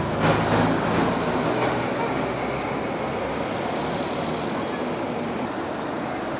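Road traffic: a motor vehicle's engine close by, loudest in the first second or two and then fading, over a steady traffic hum.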